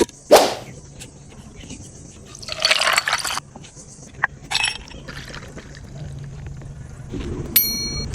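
Kitchen handling sounds while making a milkshake: a splash of liquid poured for about a second, a short knock, and near the end a single ringing clink of glassware or utensil.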